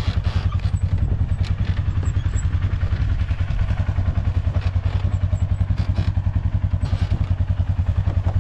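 A small engine idling steadily with a rapid, even pulse, with a few faint knocks over it.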